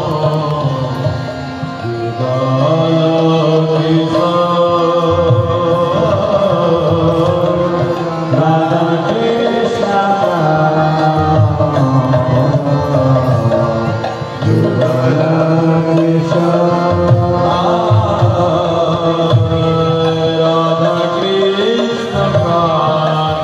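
Devotional Hindu kirtan: a male singer chanting a Radha-Krishna song, carried over held instrumental tones, with hand-drum accompaniment.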